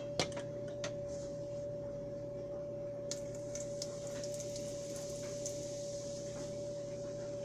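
A steady hum holding one unchanging tone, with a faint hiss and a few faint clicks near the start and about three seconds in.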